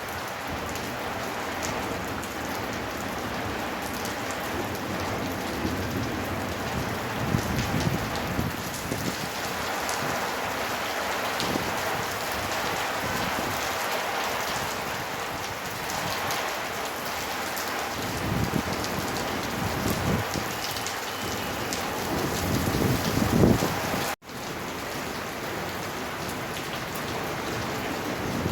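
Heavy rain pouring down in a steady hiss, with several low rumbles swelling up through it. The sound cuts out for an instant near the end, then the rain carries on.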